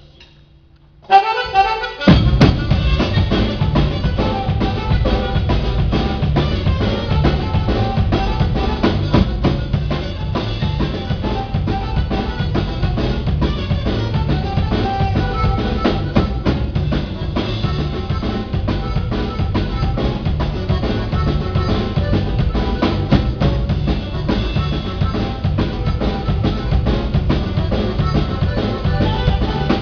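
A live band starts playing about a second in. The drum kit is to the fore, its bass drum and snare keeping a steady beat under other pitched instruments.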